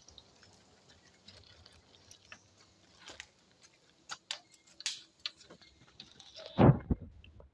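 Footsteps on a forest trail: scattered light ticks and crunches at an uneven pace, with a louder thump near the end.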